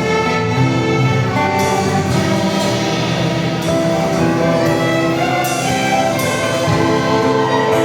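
Orchestral music with bowed strings playing held chords over light, regular percussion strikes.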